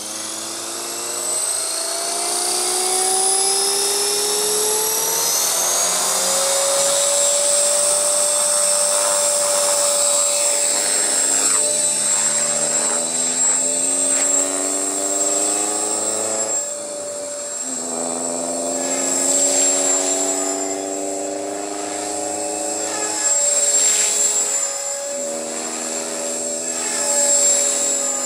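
Walkera V450D03 electric RC helicopter spooling up, its motor and gear whine rising in pitch over the first few seconds, then flying with a steady high whine and rotor buzz. The pitch dips and rises again as it manoeuvres, and it swells louder a few times in the second half as it comes close.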